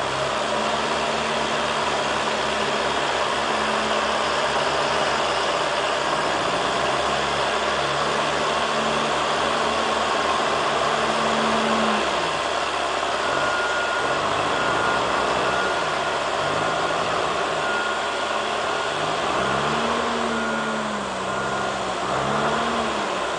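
A reach stacker's diesel engine runs hard and revs up and down while its hydraulics lower a heavy load. Short, evenly spaced beeps join in from about halfway through.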